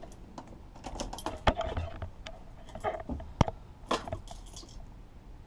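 Scattered clicks, knocks and rustling of a person climbing into the driver's seat of a Land Rover Defender and handling the ignition keys, with two sharper knocks about one and a half and three and a half seconds in. The engine is not yet running.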